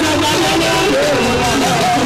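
A man singing in Yoruba into a microphone over live Fuji band accompaniment, his wavering sung line carried over a steady bass.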